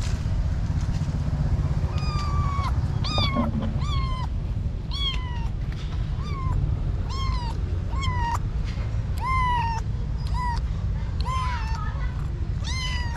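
A kitten meowing over and over: about a dozen short, high meows, roughly one a second, starting about two seconds in, each bending down at the end. A steady low rumble runs underneath.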